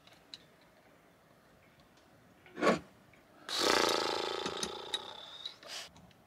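A woman's short grunt of effort, then a long closed-mouth groan that fades away, as she strains with pliers at the pin of a stainless rigging toggle. There are a few faint metal clicks from the pliers before it.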